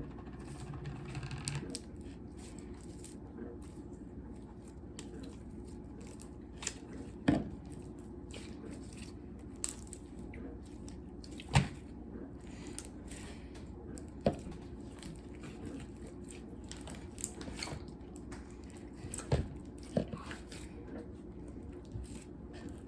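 A large mass of slime being stirred and worked, with scattered sticky pops and crackles over a low steady hum.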